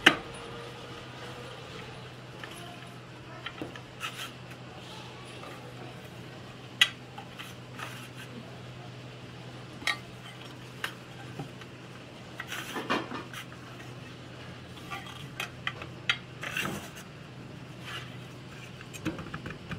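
Black extruded metal profile plates clinking and knocking as they are set down and slid together edge to edge, with scattered sharp clacks, the loudest right at the start and about seven seconds in. A steady low hum runs underneath.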